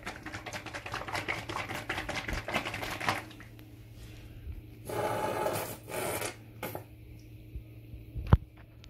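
Plastic squeeze-bottle nozzle scraping along a tile grout joint while runny grout is squeezed out: a fast run of scratchy clicks for about three seconds, a louder rasping burst about five seconds in, and one sharp click near the end.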